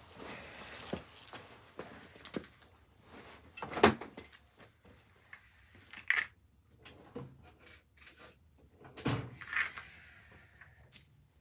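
A few separate knocks and clunks of metal tools and engine parts being handled on a workbench, the loudest about four seconds in, with a short hiss at the very start.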